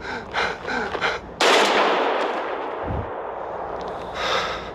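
A single loud gunshot about a second and a half in, its tail dying away slowly over the next few seconds, from the show's soundtrack.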